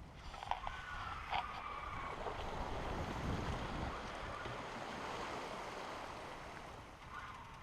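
Sea water washing past a sailboat's hull, with wind on the microphone; the wash swells louder through the middle. A couple of short knocks come near the start.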